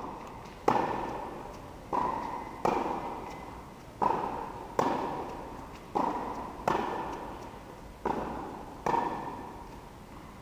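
Tennis rally: a ball struck by racket strings and bouncing on the court, about nine sharp knocks roughly a second apart. Each knock echoes and dies away slowly in the large indoor court hall.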